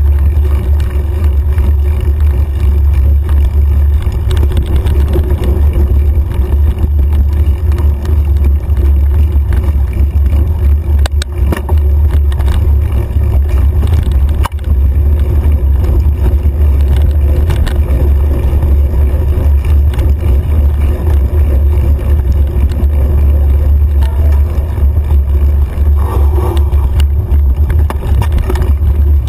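Steady low rumble of wind and trail vibration on a mountain bike's handlebar-mounted camera as it rides dirt singletrack, with a few sharp knocks from bumps in the trail.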